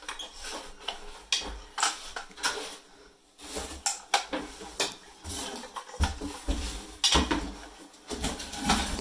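Irregular clicks and light knocks of an MTH O-scale Norfolk Southern model crane car being handled and turned over in the hands.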